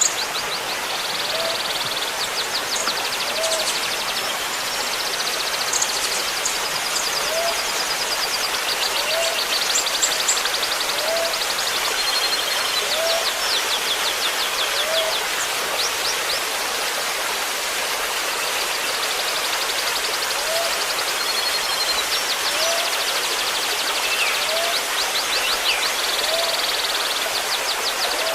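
Songbird song in fast, rattling trill bursts over a steady trickle of running water, as used in a bird-mastering recording. A short, low rising note repeats every couple of seconds underneath.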